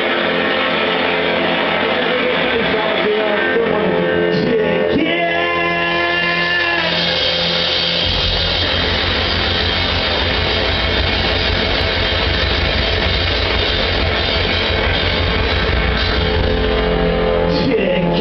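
Live band with upright double bass, electric guitar and drums playing a rock song. A sung line comes about five seconds in, and from about eight seconds the bass and drums drive a fast, dense rhythm until near the end.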